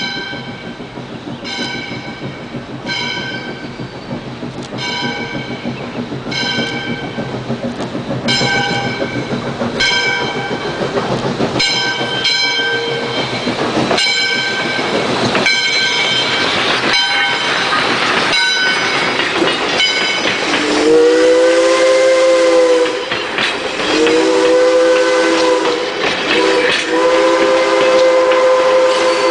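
Steam locomotive bell ringing in steady strokes about once a second as the train rolls in, over the noise of the passing train. About two-thirds of the way through, the locomotive's chime whistle blows three long blasts, the first rising in pitch as it opens, the last still sounding at the end.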